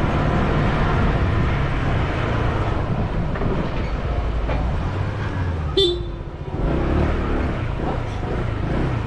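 Motorcycle engine running at low speed, with wind on the microphone; about six seconds in, a short horn toot.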